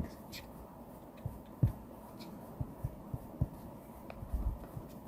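Faint, scattered soft taps and clicks of a pen or stylus working on a desk or drawing surface, the firmest tap about a second and a half in.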